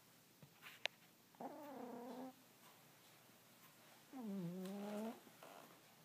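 Sleeping domestic cat snoring: two drawn-out, pitched, whiny snores of about a second each, some three seconds apart. There is a sharp click just before the first snore.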